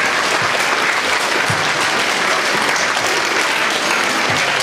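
Audience applauding: a dense, even clapping of many hands.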